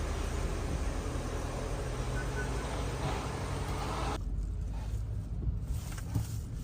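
A BMW on a test drive: steady road and tyre noise with a low hum. The upper part drops away abruptly about four seconds in, leaving a quieter low hum. No creaking is heard now that the cracked suspension bushings have been replaced.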